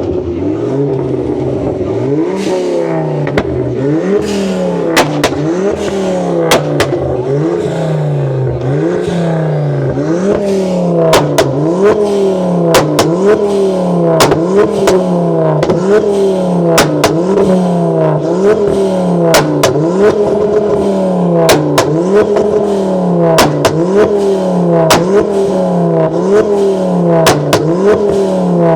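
A tuned car's engine revved hard over and over, about once a second, on a pop-and-bang flame map, with the exhaust firing sharp bangs and crackles on each lift-off. The bangs get louder and more frequent after about ten seconds.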